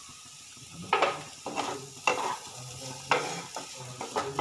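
Spatula stirring diced vegetables frying in ghee in a kadai: a faint sizzle under about six scrapes against the pan, the first about a second in.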